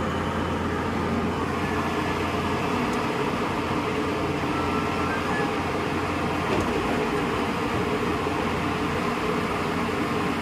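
Volvo excavator's diesel engine and hydraulics running steadily as the arm and bucket are worked. A low steady hum in the engine note drops away about six and a half seconds in.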